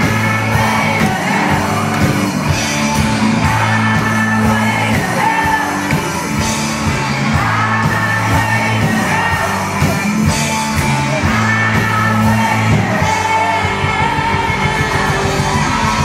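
Rock band playing live: distorted electric guitars, bass and drums with singing, loud and unbroken, with yells from the crowd.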